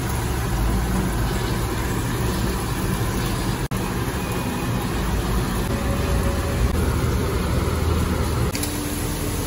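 Steady low rumble with a hiss over it: the background noise of a food-stall kitchen, around a deep fryer. It drops out for an instant a little before the four-second mark.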